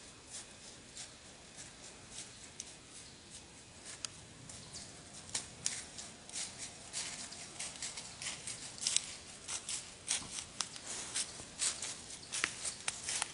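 A buck deer walking through dry fallen leaves: a run of crunching, rustling steps that grows louder and closer together from about halfway as the deer comes near.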